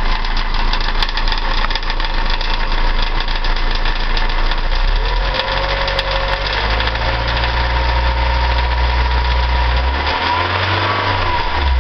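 Mazda MX-5 four-cylinder twin-cam engine idling with a fast, even tapping from the top end, which the owner puts down to the hydraulic lash compensators (lifters). The idle note shifts about five seconds in.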